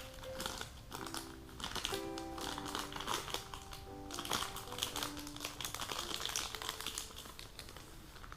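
Background piano music, with packaging crinkling and rustling as the contents of a phone box are handled; the crinkling dies down near the end.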